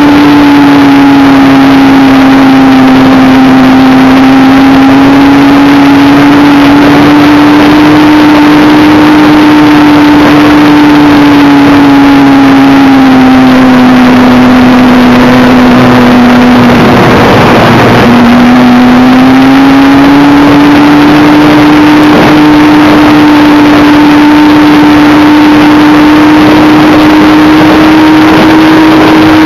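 Radio-controlled Me 163 model plane's motor, heard from an onboard camera, running as a steady whine over loud rushing air. About two-thirds of the way through the whine drops a little in pitch with a brief surge of rushing noise, then climbs back to its earlier pitch.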